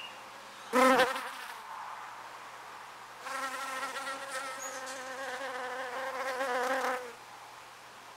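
A flying insect buzzing close to the microphone: a brief loud pass about a second in, then a steady, slightly wavering buzz from about three seconds in until about seven seconds.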